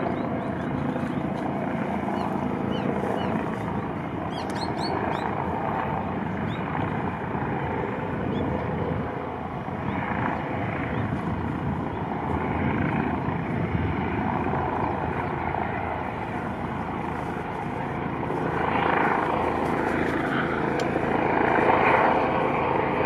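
Helicopter running, a steady rotor and engine noise that grows louder in the last few seconds.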